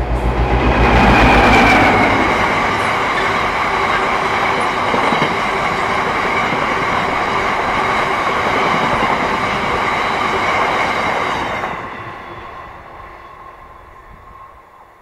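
Class 60 diesel locomotive passing close under power, its eight-cylinder Mirrlees engine's pulsing low throb loudest in the first two seconds. A long rake of box wagons then rolls by with a steady rumble and rattle of wheels on the track, dropping away sharply about twelve seconds in as the train clears.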